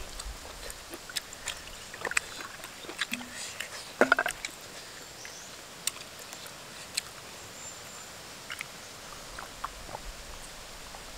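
Small clicks and knocks of a clay water jug and clay cups being handled, with water poured from the jug into a cup. The loudest knock comes about four seconds in.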